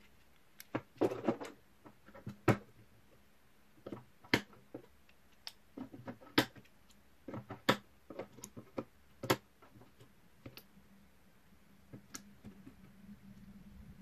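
Plastic WAGO TOPJOB S rail-mount terminal blocks being snapped onto and pushed along a TS35 steel DIN rail by hand: irregular sharp clicks and knocks, thinning out near the end.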